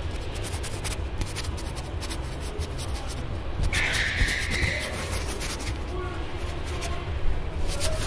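Close-up rustling and crackling of tree leaves being rubbed and handled near the microphone, with a louder scratchy rustle about four seconds in. A steady low rumble runs underneath.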